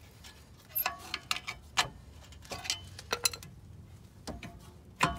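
Irregular metallic clinks and taps of hand tools against a rusty rear disc-brake caliper, a few with a brief ring, as the stuck caliper is worked loose.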